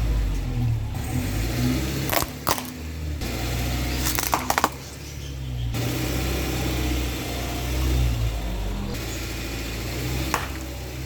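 Car engine running low and steady as the car rolls slowly, with sharp cracks and pops as its tyres crush objects: two about two seconds in, a quick cluster a couple of seconds later, and one more near the end.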